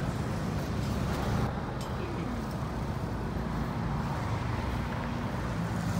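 Steady engine hum and road noise of a moving road vehicle, heard from inside it.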